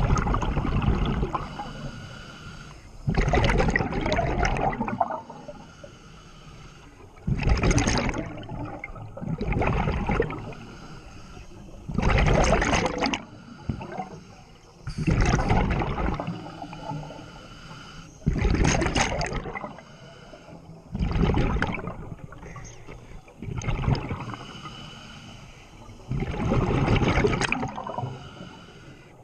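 Scuba diver breathing through a regulator underwater: a repeating rush of air and bubbling exhaust, a burst about every three seconds.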